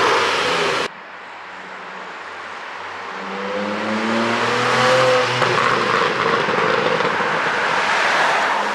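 Porsche 718 Boxster GTS 4.0's naturally aspirated 4.0-litre flat-six engine and exhaust, running on an ECU pop tune. It is loud at first, cut off short just under a second in, then builds again with a rising pitch and grows loud and rough.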